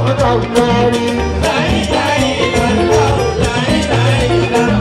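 Live fuji band music: a man singing into a microphone over talking drums and hand drums, with bass guitar and electric guitar.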